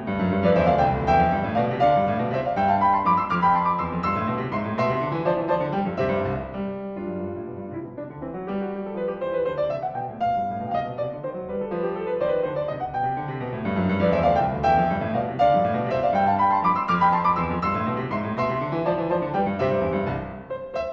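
Background piano music: flowing runs of notes that rise and fall in arching phrases, repeating every several seconds.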